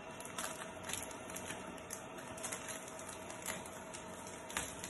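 Thin plastic protective film crackling in irregular light clicks as it is peeled off a 3D printer's flexible build plate and crumpled in the hands.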